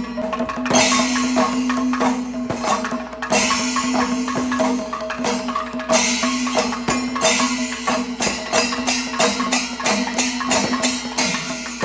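Traditional Kerala temple percussion ensemble playing: a dense run of drum strokes, with stretches of clashing hand cymbals that start and stop, over a steady held tone from a wind instrument.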